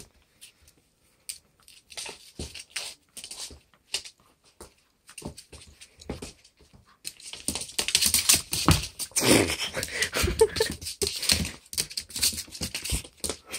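German Shorthaired Pointer scrabbling and tugging at a rope toy on a hard floor: claws clicking and skidding, with scuffles and knocks. It is sparse and quiet at first, then busy and loud from about halfway through.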